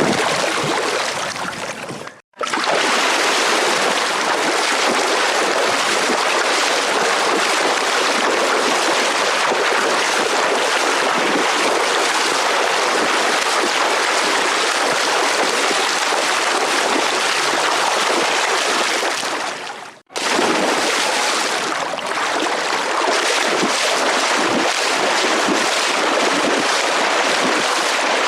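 Steady rushing of running water. It cuts out for a moment about two seconds in and again about twenty seconds in, picking up again straight away each time, like joins between looped takes.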